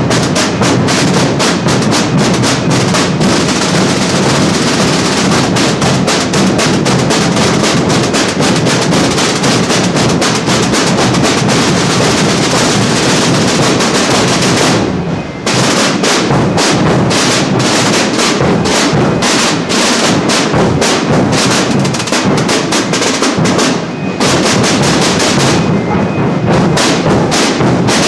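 A massed corps of rope-tensioned marching drums played together in a fast, continuous rolling beat, with short breaks in the pattern about fifteen and twenty-four seconds in.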